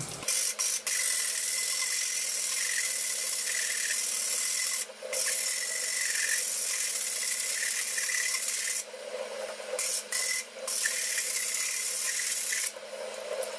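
A 60-grit diamond sanding pad rasping against the cut glass rim of a wine bottle, wet-sanded under running water, knocking down the rough, sharp edge. Long scraping strokes, with a brief pause about a third of the way in and a stop-start patch around two-thirds through.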